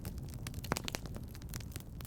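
Wood fire in a fireplace crackling: frequent sharp pops and snaps over a low steady rumble of the flames, with a louder pop about three-quarters of a second in.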